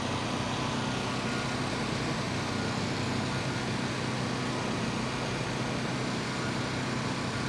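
An engine running steadily, a constant hum with an even hiss over it, typical of machinery idling on a construction site.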